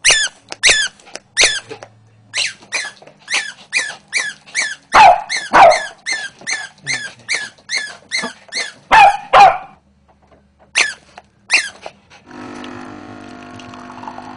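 A small dog yapping excitedly in play, about two to three high yaps a second, with louder, deeper barks about five seconds in and again near nine seconds. About twelve seconds in, a capsule coffee machine's pump starts a steady hum as it brews.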